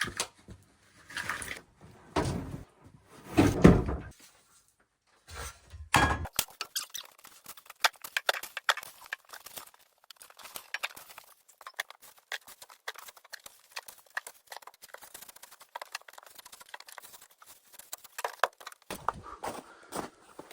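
Several heavy thuds in the first few seconds and another at about six seconds, then a long run of quick, light clicks and rattles, with more low thumps near the end.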